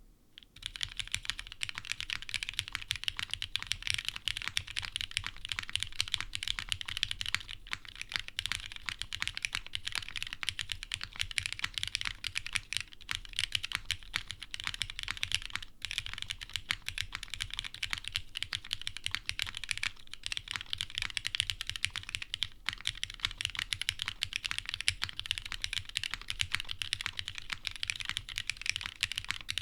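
Fast, continuous typing on a TGR x Singa HK Unikorn 60% mechanical keyboard with lubed Cherry Ultraglide Black linear switches, GMK ABS keycaps and an O-ring tray mount. The key strikes and stabilized keys run as a dense clatter that starts about half a second in, with only a few momentary pauses.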